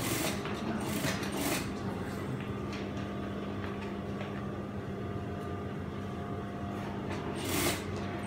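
Steady hum of idling industrial sewing machine motors, with a few brief knocks and rustles as fabric is handled at the machine, the loudest knock near the end.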